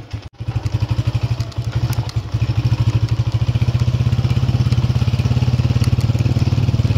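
Motorcycle engine running while riding, a steady rapid pulsing that quickens about two seconds in as the bike speeds up.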